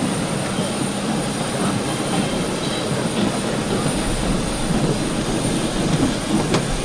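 Jet aircraft noise on an airport apron: a steady roar with a thin, steady high whine over it.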